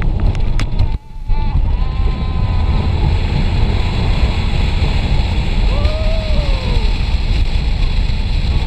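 Heavy wind buffeting the microphone of a chest-mounted GoPro as the Formula Rossa roller coaster runs at high speed, a steady low rumble that dips briefly about a second in. Two faint drawn-out wails rise and fall under the wind, one early and one past the middle.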